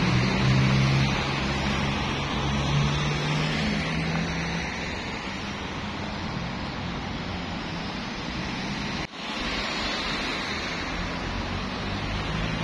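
Road traffic noise: a steady rush of car engines and tyres, with a low engine hum in the first few seconds. The sound briefly drops out about nine seconds in.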